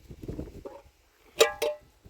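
Two quick, sharp ringing strikes about a fifth of a second apart, each leaving a short ringing tone, after a second of low rustling.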